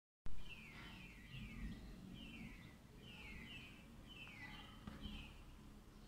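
A small bird calling over and over: about nine short chirps that fall in pitch, often in quick pairs, over a low rumble.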